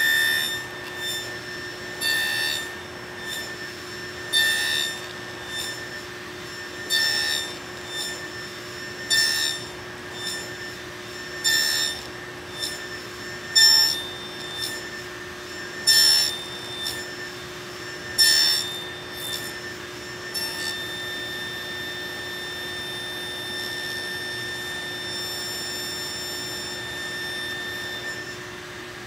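Table saw running steadily while it makes a series of short cuts into red oak, about one every two seconds, ten in all, as a notch is nibbled out pass by pass. The cuts stop about two-thirds of the way through and the saw runs on without cutting.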